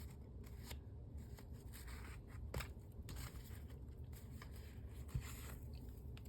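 Faint rustling and light taps of paper and card as a handmade paper-bag journal is handled and its pages turned, with a sharper tap about two and a half seconds in.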